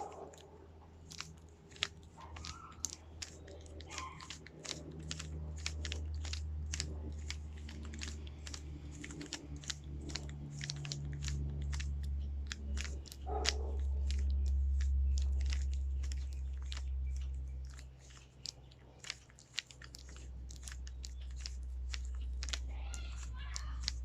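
Rubik's cube layers being turned in quick succession: a dense, irregular run of plastic clicks and clacks, several a second, as the last layers are solved.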